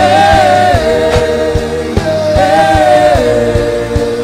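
Background music: a held melody line that slides slowly between notes, over a steady low beat of about two and a half beats a second.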